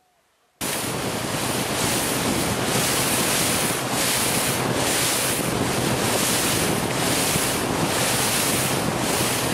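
Near silence, then about half a second in, a sudden loud rush of wind buffeting the microphone over sea and wave noise, gusting in pulses about every half second, with a steady low hum underneath.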